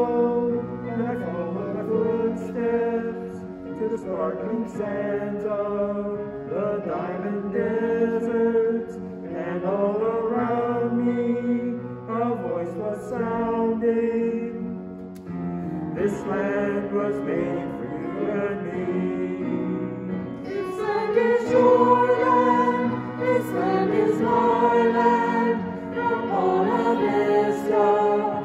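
A small group of men and women singing a hymn together in sustained phrases, with a short break about halfway through and a louder passage near the end.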